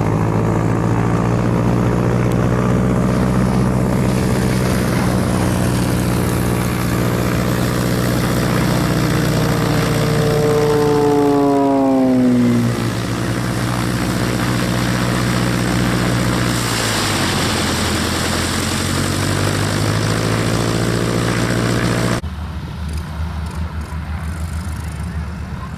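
North American AT-6D Texan's nine-cylinder Pratt & Whitney R-1340 Wasp radial engine running loud as the plane flies past low with gear down, its pitch dropping sharply as it goes by about 11 seconds in. About 22 seconds in the sound cuts to a quieter, lumpier radial engine idling as a T-6 taxis.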